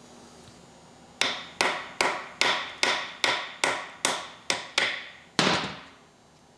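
A hammer tapping on nuts threaded onto the flywheel bolts of a Willys 134 F-head engine, driving the bolts to break the flywheel free of the crankshaft flange. About ten sharp strikes, evenly spaced at roughly two and a half a second, start about a second in, each ringing briefly. A final, harder blow near the end rings longer.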